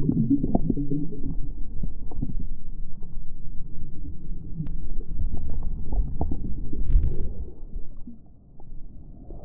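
Muffled low rumble with many scattered light knocks and bumps, dropping away near the end.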